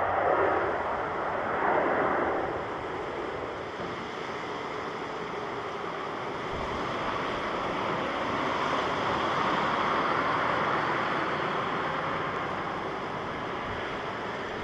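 Distant jet airliner engine noise: a steady rush that swells near the start and again in the middle.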